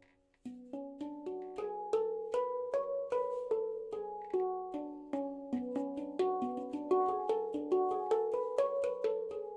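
Steel handpan in F# minor (F# ding with B, C#, D, F#, G#, A, B, C#) played with the fingers: a stream of struck notes, about three a second, each ringing on and overlapping the next. The playing starts after a brief pause about half a second in.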